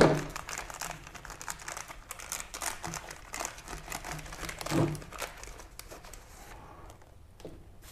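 Clear plastic parts bag crinkling and rustling as hands open it and handle the bolt, rubber grommets and paperwork inside. The crinkling dies down over the last second or two.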